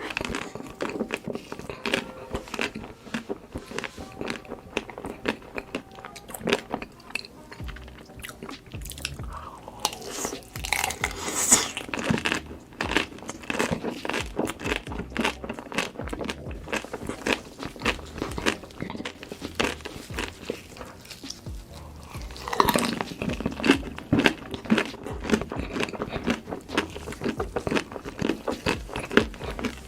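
Person biting and chewing crunchy food, a dense run of sharp crunches, over background music.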